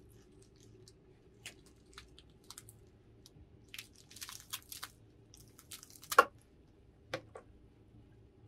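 Scattered small clicks and crunching, with a sharp knock about six seconds in and a smaller one about a second later.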